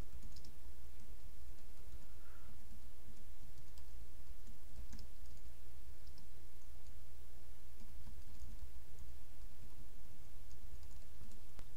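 Typing on a computer keyboard: soft, scattered key clicks over a steady low hum.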